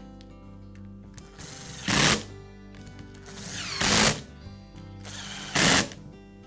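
Cordless screwdriver running in three short bursts about two seconds apart, driving in the screws that hold the cover on an angle grinder's motor housing.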